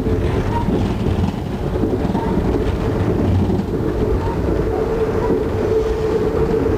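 Amtrak Northeast Regional passenger train rolling along the track, heard from inside the coach: a steady rumble with a steady hum that grows a little stronger in the last couple of seconds.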